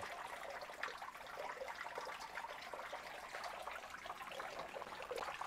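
Faint trickle of running water flowing into a catfish fry hatching tank.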